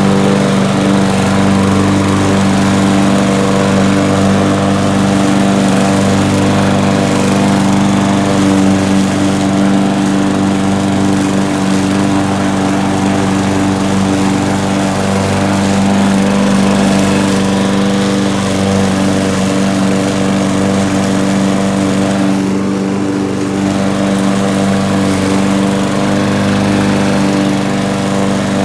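Gas-powered walk-behind lawn mower, just pull-started, running steadily at full throttle while it is pushed through grass.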